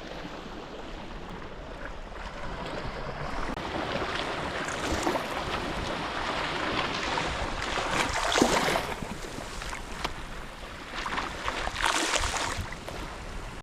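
Surf washing onto the beach, with waves breaking every three to four seconds.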